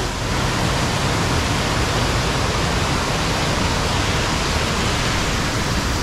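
Kuang Si Falls' cascades rushing steadily into the pool, an even hiss of falling water.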